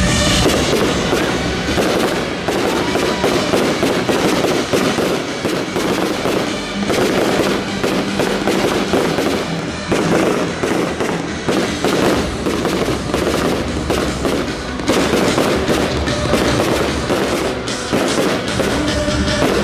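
A firework display going off in a dense, rapid run of bangs and crackles, with music playing for the show underneath.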